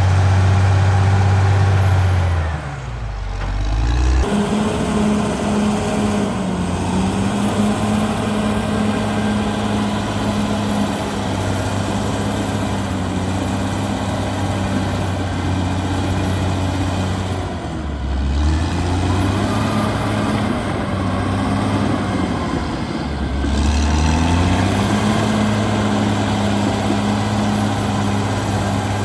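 Caterpillar D6R XL bulldozer's diesel engine running steadily. Its engine note drops and climbs back three times: about three seconds in, around eighteen seconds in, and about twenty-three seconds in.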